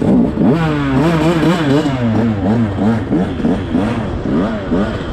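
Dirt bike engine revving hard, its pitch swooping up and down over and over, a few times a second, as the throttle is opened and shut. A second engine runs at a steadier pitch beneath it.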